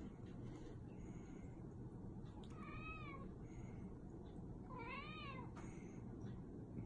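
Persian cat meowing twice, two quiet calls about two seconds apart, each rising then falling in pitch: meowing to beg for a treat.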